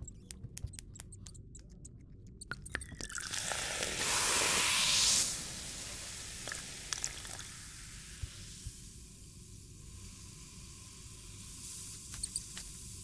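Liquid being poured from one glass flask into another, a splashing hiss that is loudest for about a second near the middle and then carries on more weakly, after a run of small clicks.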